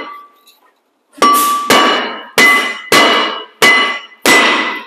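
Hammer blows on a rusty rear brake rotor of a Toyota RAV4, knocking the rotor loose from the hub. Six sharp strikes, starting about a second in and coming roughly every half to three-quarters of a second, the metal disc ringing after each.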